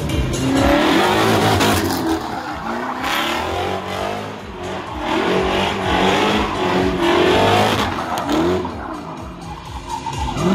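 Drift car sliding, its engine revving up and down over and over with the throttle, tyres squealing through most of it; the squeal dies away near the end.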